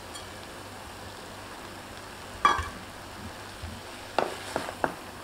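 Cabbage, peas and chopped green onions frying in a metal pot, cooking uncovered on a fairly high flame and stirred with a wooden spatula: a soft steady sizzle. A louder clank about halfway, and a few quick knocks of the spatula against the pot near the end.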